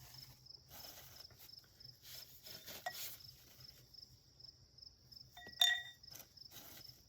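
Cricket chirping in a steady, fast pulse while metal woodstove parts are handled, with scattered knocks and clinks; the loudest is a ringing metal clink about five and a half seconds in.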